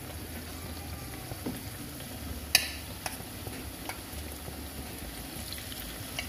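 Flour-battered tempeh slices frying in hot oil in a small pan: a steady sizzle with scattered sharp pops, the loudest about two and a half seconds in.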